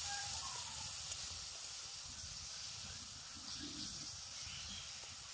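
Onion-tomato masala frying in oil in a metal kadai, a faint steady sizzle; the masala has cooked down and the tomatoes have fully softened.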